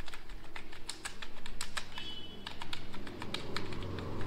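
Computer keyboard keys clicking in an irregular run of keystrokes as a line of text is typed.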